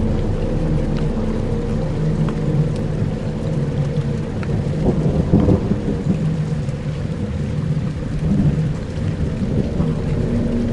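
Dark ambient soundscape: low held drone tones layered with rain and rolling thunder, the rumble swelling about five seconds in.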